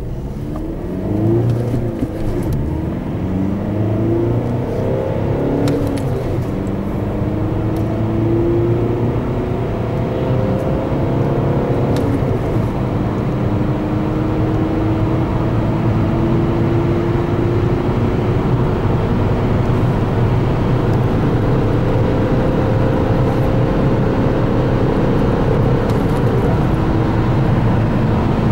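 Volkswagen Golf VI 2.0 TDI four-cylinder turbodiesel under full-throttle acceleration. The engine note climbs in pitch through each gear and drops back at each upshift, with the gears getting longer as speed builds.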